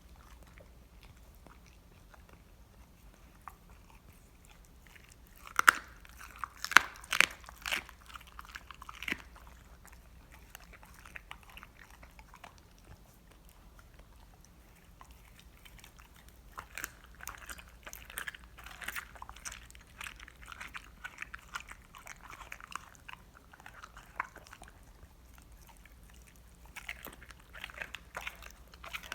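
Dog crunching and chewing the raw bones of a Cornish hen: a cluster of loud, sharp cracks about six to nine seconds in, then further bouts of chewing later on.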